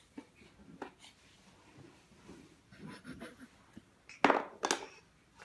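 A baby handling a toy puzzle piece on a puzzle board on carpet: soft rustling and light tapping, then two sharp knocks near the end.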